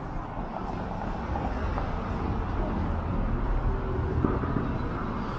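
Steady low rumble of city street traffic, with no single vehicle standing out.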